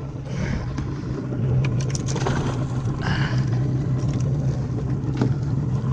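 Boat engine running steadily with a low hum while trolling, with water wash and a few short clicks and knocks about two seconds and five seconds in.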